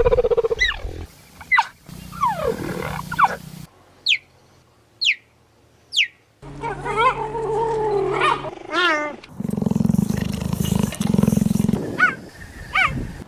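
A sequence of edited big-cat calls from cheetah, leopard and cougar recordings. Short, high, falling chirps are heard three times in quick succession, followed by a longer wavering call and low rasping growls.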